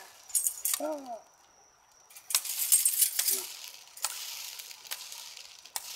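Charcoal ember poi being spun, giving a dense, clinking crackle that builds up about two seconds in and then eases to a softer, steadier hiss.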